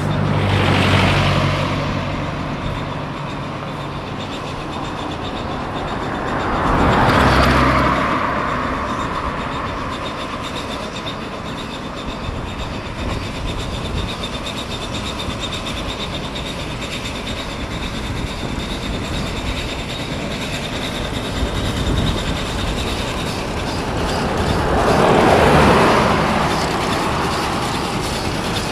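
Steam wagon working up a hill road towards the microphone. Passing vehicles swish by about a second in, around seven seconds and near the end.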